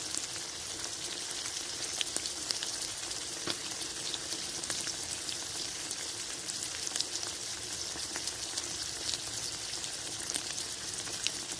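Fish frying in hot oil in a pan: a steady sizzle with a scatter of sharp pops and crackles throughout.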